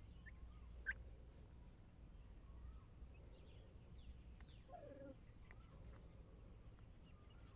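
Near silence with faint, scattered calls from chickens in the run: a short high chirp about a second in, soft peeps here and there, and a brief lower call about five seconds in.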